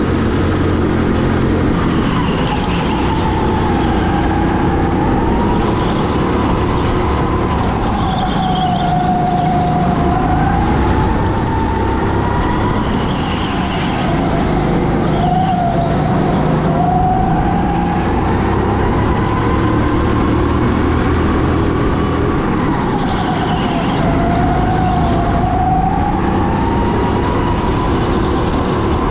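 Onboard sound of a rental go-kart at race pace: its motor runs continuously, the pitch climbing on the straights and dipping for the corners every few seconds over a steady low rumble.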